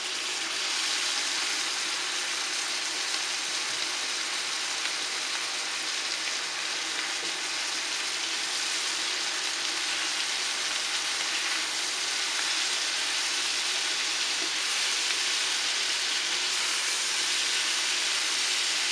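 Sautéed pork, vegetables and freshly added fiddlehead fern greens sizzling in a frying pan as they are turned with a silicone spatula: a steady, even frying hiss.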